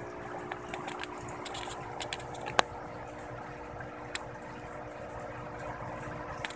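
Steady machine hum with a few even tones under a background hiss, broken by scattered small clicks and one sharp click about two and a half seconds in.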